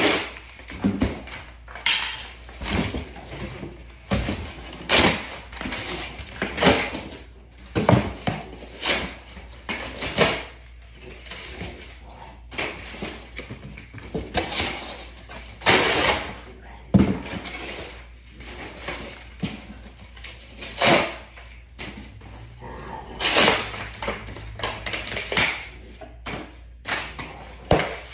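Large cardboard box being broken down by hand: an irregular run of sharp cardboard knocks and slaps, with a few longer rasping rips and scrapes.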